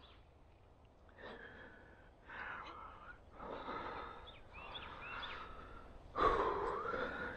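A man breathing hard: a run of heavy breaths and sighs about a second apart, the loudest near the end. It is the excited breathing of a turkey hunter who has just killed a bird.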